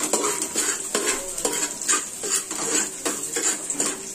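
A steel spoon scraping and knocking against the bottom of an aluminium pot as onion and garlic are stirred in hot oil, about two to three strokes a second, the pot ringing briefly after each. A light sizzle of the frying runs underneath.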